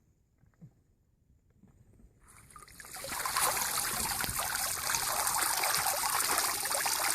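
Near silence at first, then about three seconds in, water starts running and carries on as a steady trickling, splashing rush.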